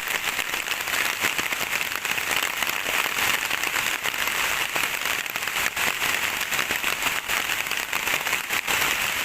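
Rain falling steadily: a dense, even hiss crowded with small, sharp drop impacts.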